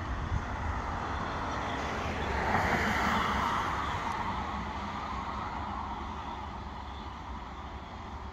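Ffestiniog Railway narrow-gauge steam locomotive pulling its train away into the distance. Its exhaust noise swells a few seconds in and then slowly fades, over a low rumble of wind on the microphone.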